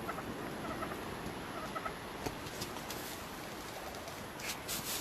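Merriam's wild turkeys clucking in short, soft notes twice over a steady hiss, with a few sharp clicks in the middle and a brief rustle near the end.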